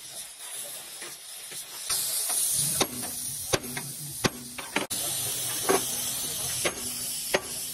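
Oxy-fuel cutting torch hissing steadily from about two seconds in as it burns through rivet heads on a steel truck chassis rail. Sharp sledgehammer strikes on the steel ring out roughly once a second, knocking out the cut rivets.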